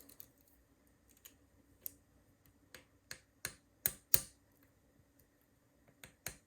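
Sharp, scattered metal clicks from a disc-detainer pick turning the discs inside a Brinks R70 disc padlock. There are about a dozen irregular ticks, the two loudest a little past the middle.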